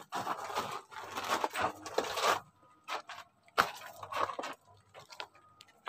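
Footsteps crunching on loose rock and gravel, in irregular bursts broken by two short pauses.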